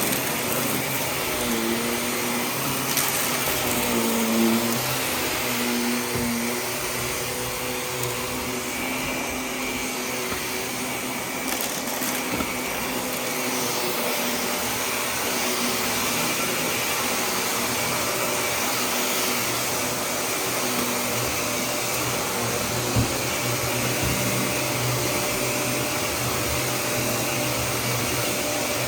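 Vacuum cleaner running steadily over carpet, sucking up dry debris, with a few short crackles as bits are picked up.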